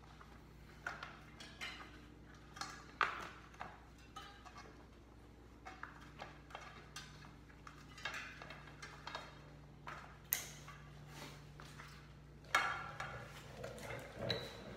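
Bicycle tyre being worked around its wheel rim by hand: irregular rubbing and scraping of rubber against the rim, with scattered clicks and a few sharper knocks.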